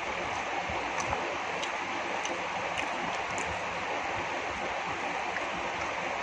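Steady, even hiss of background noise, with a few faint soft clicks in the first half.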